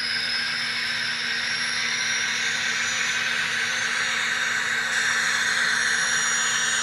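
Gas-turbine sound of an N scale GTEL turbine locomotive model, played by its LokSound sound decoder through the model's small speaker: a steady, loud jet-like roar and hiss with a high whine over it, growing slightly louder past the middle.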